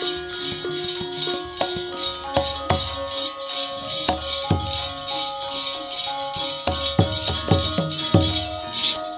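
Javanese gamelan ensemble playing an instrumental passage: sustained, ringing metallophone tones at several pitches over low drum strokes, with a fast, even metallic pulsing above.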